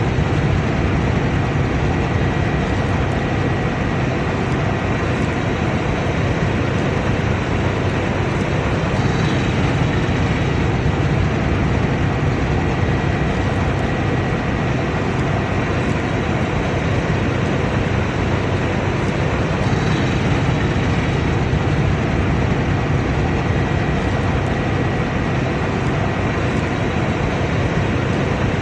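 Combine harvester running at a steady working pace, a loud, constant machine noise without pauses or changes.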